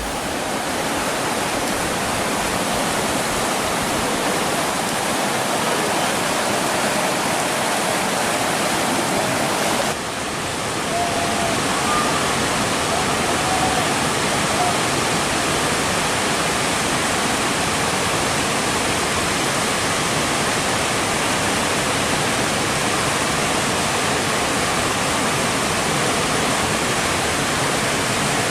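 Steady rush of fast-flowing river water, its sound changing briefly about ten seconds in.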